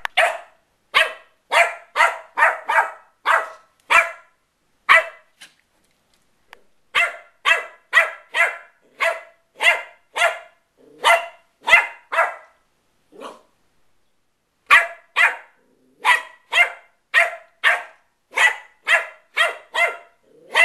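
West Highland White Terrier puppy play-barking at a toy: short, sharp barks about two a second, in three runs with brief pauses between them.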